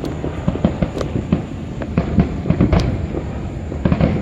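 Fireworks going off in a rapid, irregular string of bangs and crackles, with a sharper report about a second in and another near three seconds.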